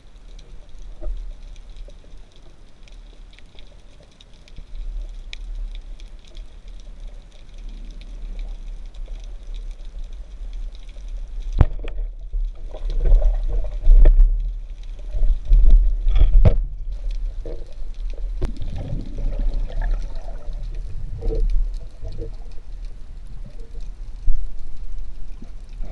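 Water noise picked up by a camera underwater: a steady low rumble with gurgling. About halfway through comes a single sharp click, followed by several seconds of louder, uneven sloshing and bubbling.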